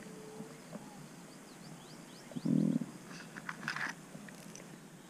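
Clear plastic tackle box handled on the lap: a dull bump about halfway through, then a quick run of light plastic clicks and rattles from the box and the hard lures inside it.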